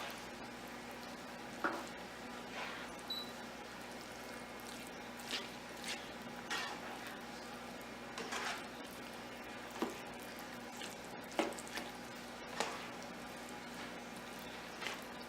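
Utensil stirring a thick, saucy mixture of wild rice and vegetables in gravy: short wet squishing and scraping strokes at irregular intervals, roughly one a second.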